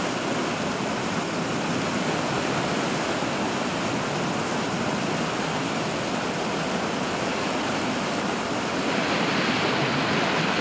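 Steady rush of water pouring and churning through a concrete canal, a little louder and brighter about nine seconds in.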